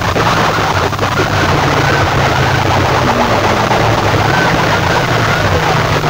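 Clusters of horn loudspeakers blaring at full volume, several rival sound systems playing over one another in a distorted din. Short rising-and-falling wails repeat over a steady low drone.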